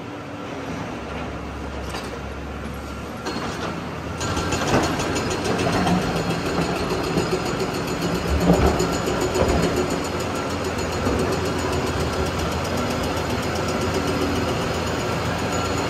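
Heavy diesel machinery engine running steadily, getting louder about four seconds in, with a few clanks mixed in.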